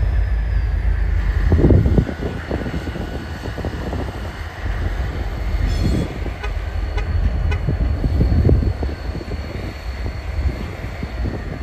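Diesel locomotives of a BNSF local running as they move slowly while switching, under heavy wind buffeting on the microphone that comes in gusts. A faint steady high whine is also heard.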